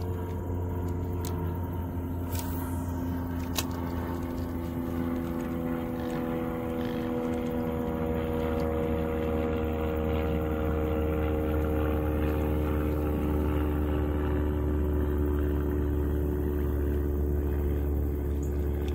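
An engine running steadily throughout, its pitch drifting slowly, with a few faint clicks in the first few seconds.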